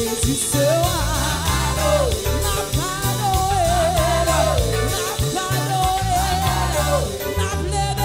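A woman singing a Haitian Creole gospel worship song into a microphone over a live band's bass and drums, holding long notes with a wavering vibrato.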